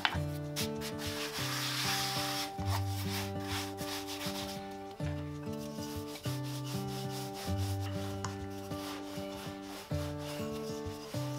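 A wooden rolling pin rubbing back and forth as it rolls yeast dough out on a floured wooden board, with hands handling the dough, under gentle background music.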